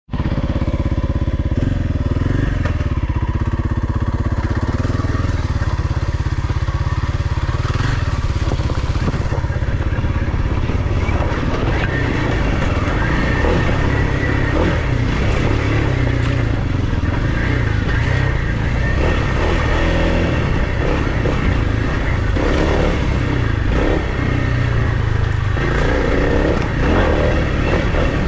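Kawasaki KLX300 dirt bike's single-cylinder four-stroke engine running steadily as it rides down a rocky single track. Knocks and rattles from the bike jolting over the rocks come through, most of them in the second half.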